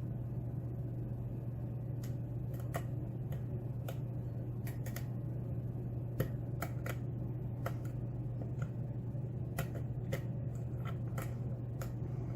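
Small sharp clicks and ticks at irregular intervals from a hook pick working the spring-loaded pins of a Schlage pin-tumbler lock under tension, starting about two seconds in. A steady low hum runs underneath.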